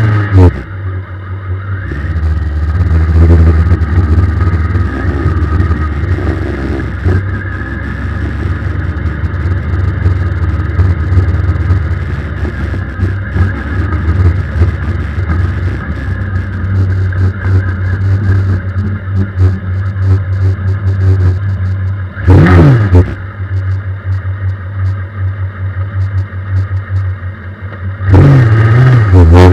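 Suzuki Hayabusa 1300 inline-four motorcycle engine in a race car, breathing through an Akrapovic exhaust, idling steadily. About two-thirds of the way through it is blipped once, revs rising and dropping quickly, and near the end the revs rise and it gets louder.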